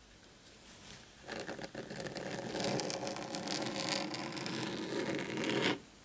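Fingernails scratching across a dark mat for about four seconds, starting a little over a second in and cutting off abruptly near the end.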